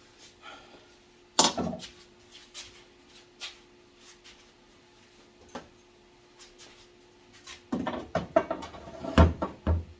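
Scattered clicks and knocks of hand work on a car body, building near the end into a clatter with two heavy thuds as a part is worked loose. A faint steady hum runs underneath.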